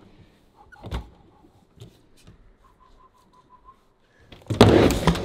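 Skateboard with full-size trucks and wheels on a tiny deck, poised on a mini-ramp's coping: a light knock about a second in, then near the end a loud, short burst of rattling and scraping as the board drops off the coping onto the ramp.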